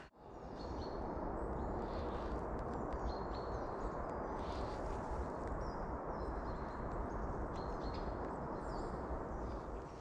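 Forest ambience: a steady low rush of background noise with faint small-bird chirps scattered throughout.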